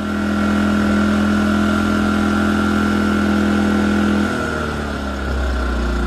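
A-iPower SUA2000i inverter generator's engine running steadily in idle (eco) mode with a space heater connected as a load. It grows louder at the outset, and its note changes and drops lower about four to five seconds in.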